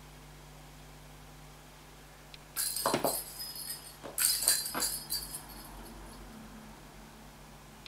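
Cat toy of two plastic balls swung on a string and batted by a kitten, rattling with a bright ringing in two bursts, about three and four-and-a-half seconds in, the first with a knock.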